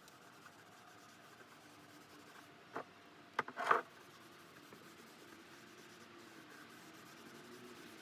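Cloth rag rubbing wipe-on polyurethane onto a wooden drawer front: faint, soft strokes, with two short louder rubbing sounds a little before the middle.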